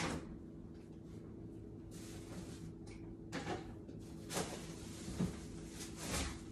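A few scattered knocks and clunks of someone moving things about in a kitchen, fetching an ingredient from a counter or cupboard, over a faint steady hum.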